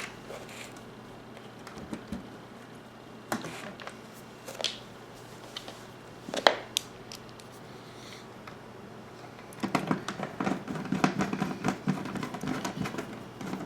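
Small clicks and knocks of a monitor's screws and casing parts being handled during reassembly: a few scattered ones, then from about ten seconds in a fast run of small clicks and rattles as a screw is worked into a stripped hole.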